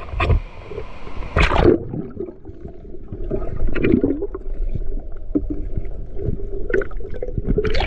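A splash, then muffled gurgling and bubbling of water heard with the microphone underwater, and another splash near the end as the sound opens up again.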